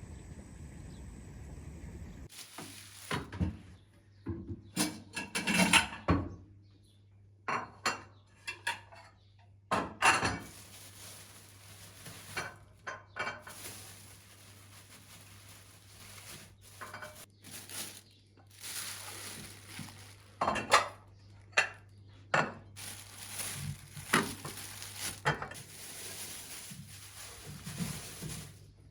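Irregular clinks and knocks of hard objects, like dishes and utensils being handled, some of them sharp and loud, over a faint steady hum.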